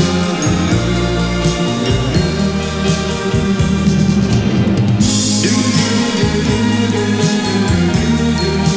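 Mid-1980s Thai pop song played from a vinyl record: a band with a steady bass line and drum kit keeping a regular beat.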